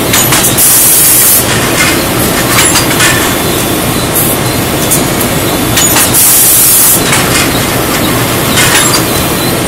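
Ceramic tile production machinery and roller conveyor running, a loud steady clatter with scattered clicks and rattles. Two loud hisses break over it, one about half a second in and another about six seconds in.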